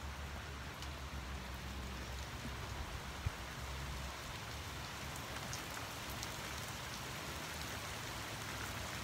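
Steady heavy rain falling, with a low rumble in the first few seconds that fades out about four seconds in. There is one sharp tick about three seconds in.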